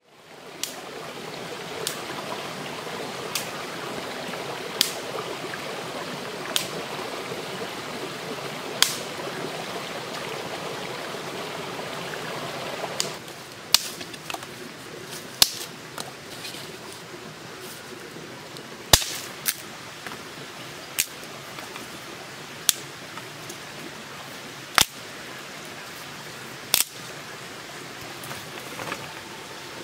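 Sharp clicks about every two seconds over a steady rushing noise; the rushing drops to a quieter background about 13 seconds in.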